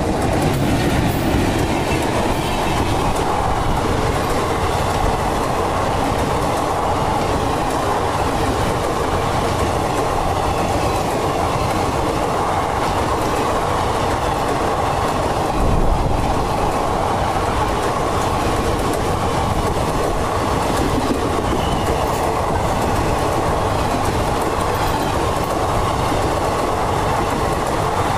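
Passenger express train hauled by a WAP-4 electric locomotive passing close at speed without stopping. Its coaches go by in a steady, loud rush, with the wheels clattering over the rail joints.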